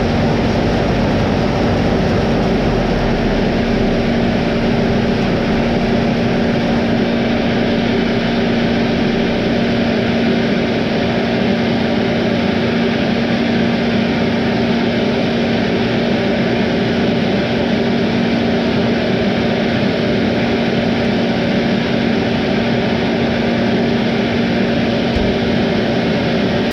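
Diesel engine of heavy harvest machinery running steadily, a constant loud drone with a steady hum in it.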